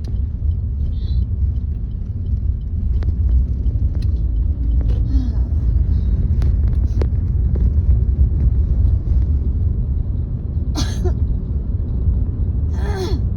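Steady low road rumble inside a moving car, with two short chesty coughs from a woman near the end; a cold has left phlegm stuck in her throat that won't come up.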